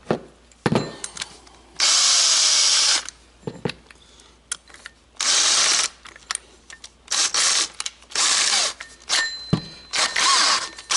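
Power drill fitted with a hole saw, run in about five short bursts of a second or less, with clicks and knocks in between.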